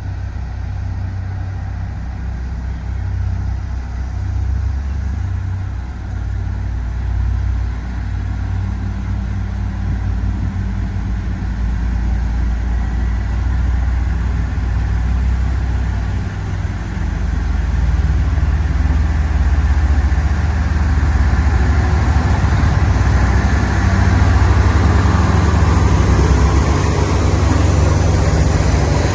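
HD850 motor grader's diesel engine running steadily, growing louder over the second half.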